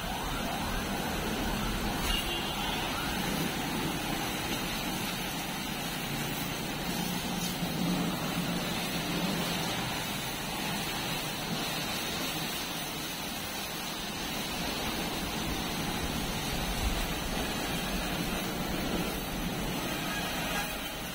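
Steady hiss of high-pressure water jets spraying a tractor and backhoe during a wash, with a low hum underneath.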